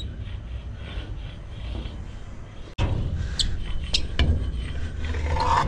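A block of skate wax rubbed along a metal handrail to make the sticky rail slide, with a few short sharp scraping sounds in the second half and a steady wind rumble on the microphone.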